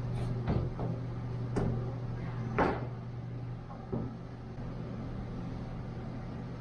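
Four short, sharp knocks, the loudest near the middle, over a steady low hum that eases a little about halfway through.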